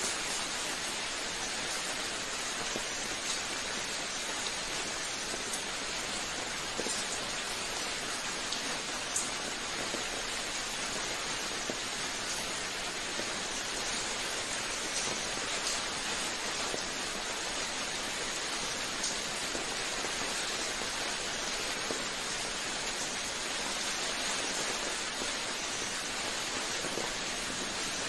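Steady rain: an even hiss of falling drops, with occasional sharper ticks of single drops.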